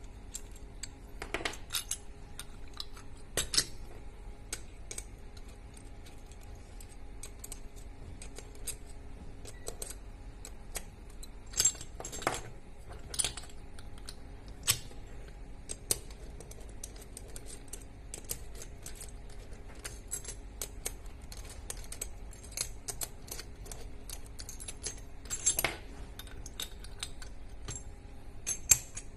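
Small metal tools and camera-head parts handled on a bench during disassembly of an endoscope camera head: irregular light clinks and clicks, with a few sharper knocks, over a faint steady hum.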